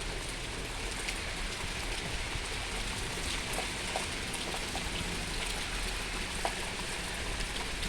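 Steady storm rain falling, an even hiss with scattered small drop ticks.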